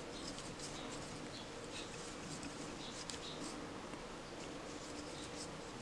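Faint, soft rustle of cotton crochet string drawn through and around a crochet hook as stitches are worked, over a low steady hum.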